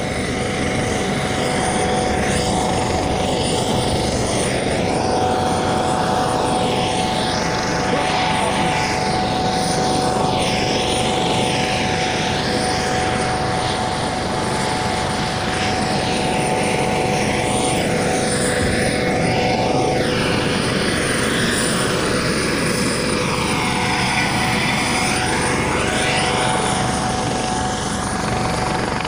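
Helicopter running: a steady, loud rotor and turbine noise with a constant whine.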